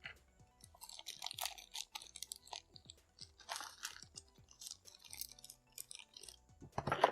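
Plastic packaging crinkling and rustling in irregular bursts as the parts of a wireless keyboard-and-mouse set are unwrapped and handled, with a louder rustle and knock near the end.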